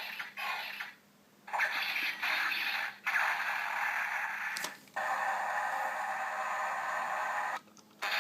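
Electronic sound effects from a Bandai DX Dice Saber toy played through its small built-in speaker after scanning the Chameleo Wizard Ring. A quick pulsing effect at first, a short pause, then several bursts of electronic sound, the last one long and steady and cutting off near the end.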